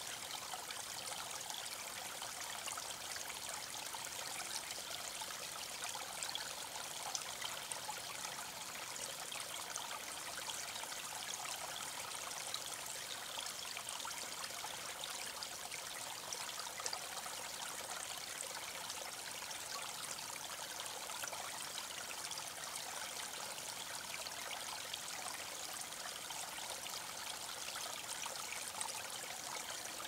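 Small shallow creek flowing softly over a gravel and pebble bed: a steady babble of running water with fine splashing, light and high with little low rumble.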